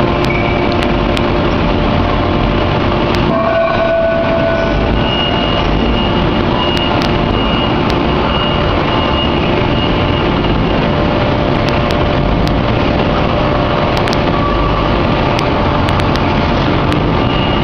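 Hydraulic open-die forging press and its machinery running in a steady, loud industrial din, with faint steady tones that come and go and a few light clicks.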